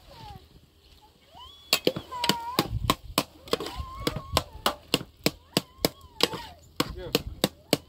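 Rapid chopping with a knife on a cutting board, a steady run of sharp strokes about three to four a second that starts a couple of seconds in.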